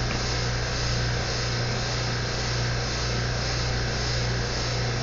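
A machine running steadily: a constant low hum with an even hiss over it, no change in speed.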